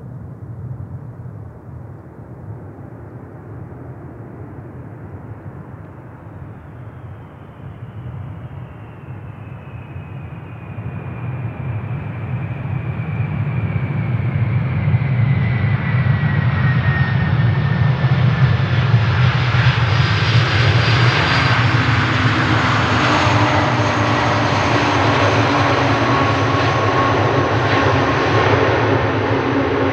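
Jet airliner's engines growing steadily louder as the aircraft comes closer, from a low rumble to loud over the first half. Whining engine tones glide slowly down in pitch as it nears.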